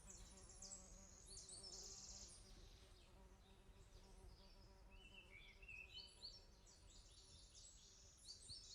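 Near silence, with faint high chirping in clusters near the start and again from about five seconds in, over a faint low hum.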